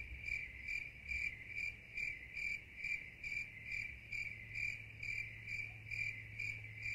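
Steady cricket-like chirping: a high-pitched chirp repeating evenly about twice a second, over a faint low hum.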